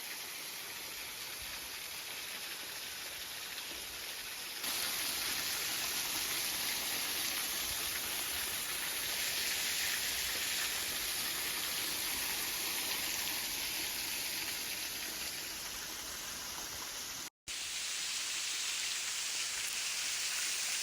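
Running water of a mountain stream rushing steadily with a hiss. It steps up louder about four and a half seconds in and cuts out for an instant about seventeen seconds in.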